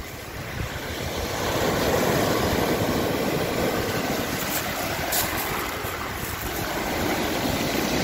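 Black Sea surf breaking and washing up over a pebble beach: a steady rush of waves that swells over the first couple of seconds and then holds.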